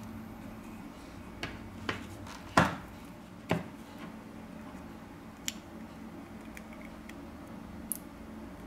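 A few sharp clicks and taps as the iPod touch's replacement screen assembly and metal housing are handled and fitted together, the loudest about two and a half seconds in, with fainter ticks later, over a steady low hum.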